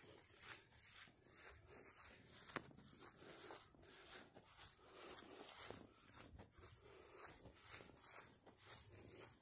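Faint footsteps on grass at a walking pace, about two a second, with soft rustle from the hand-held camera and one sharper click about two and a half seconds in.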